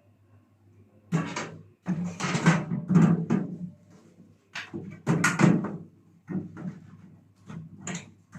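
Sheet-metal outer cover of a Sharp R-219T microwave being handled and fitted back onto the chassis: a series of irregular metallic knocks and clatters.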